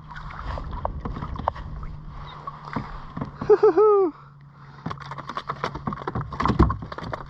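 Clicks and knocks of a fishing rod, reel and gear being handled on a plastic kayak while a fish is landed and unhooked, over a low steady hum. A short pitched call of a few quick notes, ending in a longer falling one, comes about three and a half seconds in and is the loudest sound. The clicks come thick and fast near the end.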